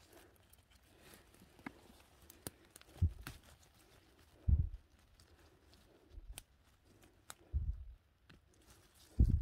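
Scattered sharp cracks and crinkles of dry forest-floor debris such as twigs and leaves, with a few dull low thumps, as someone moves through and works in the undergrowth.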